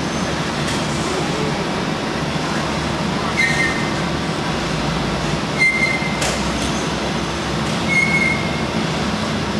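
Overhead bridge crane running in a steel coil bay, a steady rumble while it travels with a hanging steel coil. A short high squealing tone cuts through three times, about every two and a half seconds, with a single clank in the middle.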